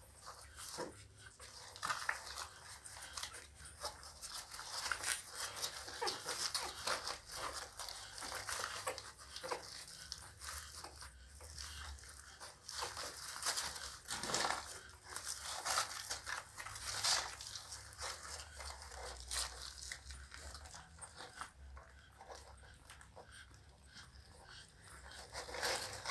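Pit bull puppies nursing: a dense, irregular run of small wet suckling and smacking clicks, quieter toward the end.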